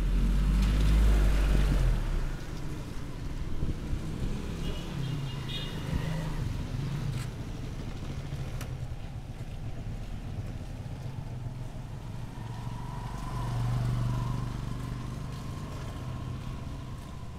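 Street traffic: motor vehicles running past, with a louder low rumble in the first two seconds.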